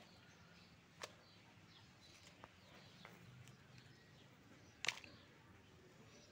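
Near silence, broken by two sharp clicks about a second in and near five seconds in: a small plastic toy shovel digging dry soil and tipping it into a plastic toy trolley.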